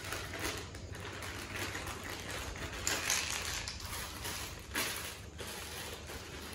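Thin plastic bag crinkling and rustling as it is handled and emptied of small white plastic tent-frame connectors onto a tile floor. There are louder rustles about three seconds in and just before five seconds.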